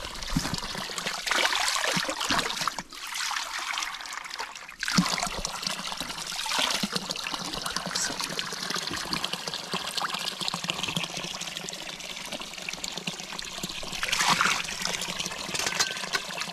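Running water trickling and pouring steadily, with two brief dips in the flow about three and five seconds in.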